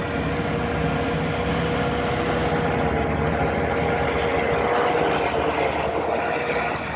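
Takeuchi TL12V2 compact track loader running steadily with its Coneteks 2.13M ground-grinding attachment driven, a steady whine at one pitch above the engine noise. The noise eases slightly near the end.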